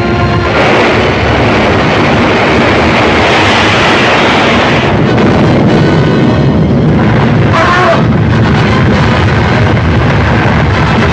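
Loud, steady rushing roar of a film sound effect, with a brief wavering tone about eight seconds in.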